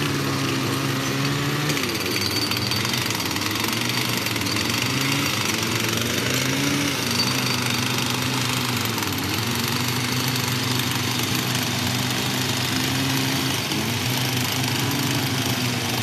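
Hand-held petrol-engined rock breakers (jackhammers) running steadily as miners dig into the pit's rock, the engine drone wavering slightly in pitch over a dense hammering rattle.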